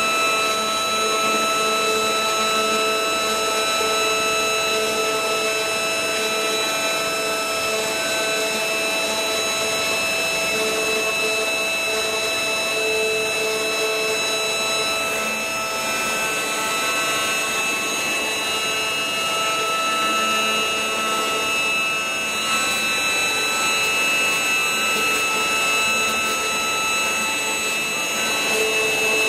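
CNC router spindle running at high speed, its bit milling a wooden panel. A steady whine of several high tones over a hiss of cutting, with a lower tone that swells and fades as the bit moves.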